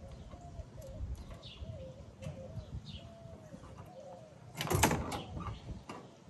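A dove cooing over and over, with small birds chirping, under soft handling noises of tools. About four and a half seconds in there is one loud, short clatter of hardware or a tool being handled on the pickup's tailgate.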